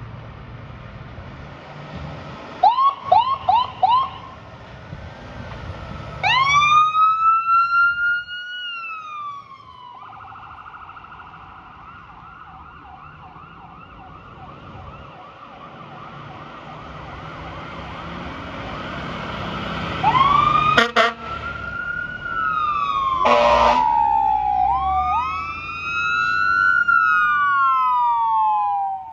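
Fire apparatus sirens: four short rising chirps, then a rising and falling wail, then a quicker warble. A little past two-thirds of the way in come loud air horn blasts, followed by overlapping wails from more than one siren as several units respond.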